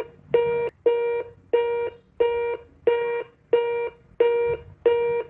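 Telephone busy tone after a call is hung up: one steady pitched beep repeating about three times every two seconds.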